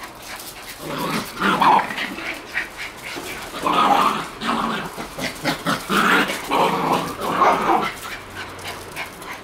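Shiba Inu puppies barking and growling in play, in about five short bursts.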